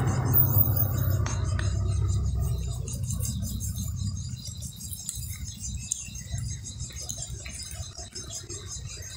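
A cat chewing a whole raw fish, irregular wet chewing sounds, over a low rumble that is loudest in the first few seconds and then fades.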